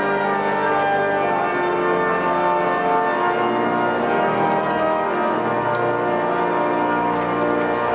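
Walcker pipe organ playing full sustained chords that change a few times.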